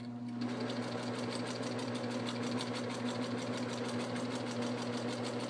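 Singer 4562T electric sewing machine sewing a straight stitch: steady motor hum with a rapid, even clatter of needle strokes, starting under half a second in.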